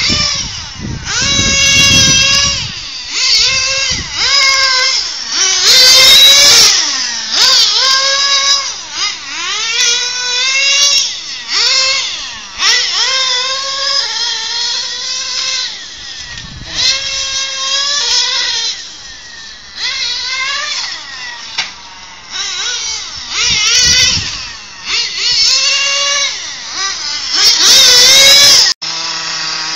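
Kyosho FW-05RR 1/10 nitro touring car's small glow-fuel engine revving high and dropping back over and over as the car accelerates and brakes around the circuit. It makes a high-pitched wail that climbs and falls about every one to two seconds. Near the end it cuts off suddenly and a lower, steady hum follows.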